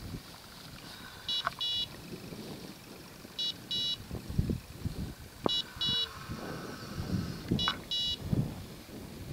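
A dog's electronic beeper collar sounding a short beep then a longer one, repeating about every two seconds, four times. Footsteps swish through tall dry grass and brush underneath.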